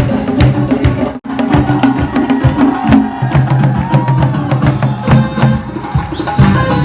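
Upbeat music with prominent hand drums and percussion keeping a steady beat, briefly cut off about a second in.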